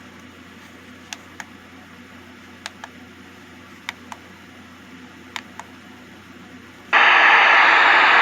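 Plastic buttons on an Eton clock radio clicking in quick pairs, four times, then about seven seconds in a loud steady hiss of radio static switches on from its speaker as the radio is set to the weather band.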